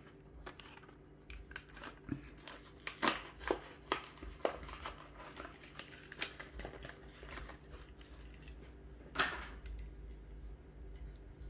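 A Hot Wheels blister pack being opened by hand: the cardboard backing tearing and the clear plastic blister crinkling and crackling in irregular snaps.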